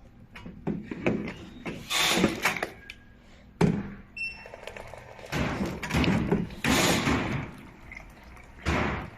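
Thunks and knocks of a coffee and juice vending machine being handled, its doors or panels opening and closing, with a short electronic beep a little before the middle.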